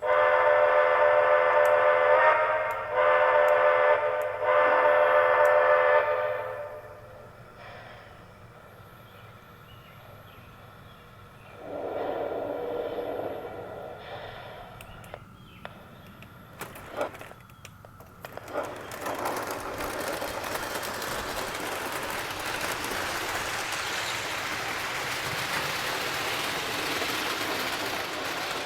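Lionel O-gauge B&O Camelback model locomotive sounding its steam whistle in three long blasts. After a quieter stretch, the model train runs along the track with a steady rolling and motor noise.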